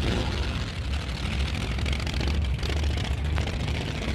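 Drag racing car's engine running steadily, a loud, deep rumble with no clear rise or fall in pitch.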